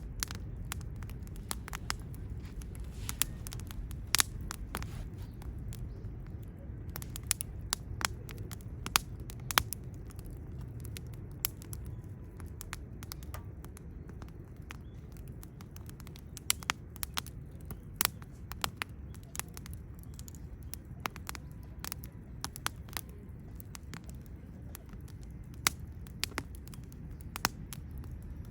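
Wood campfire crackling, with sharp pops at irregular intervals, several a second at times, over a steady low rumble.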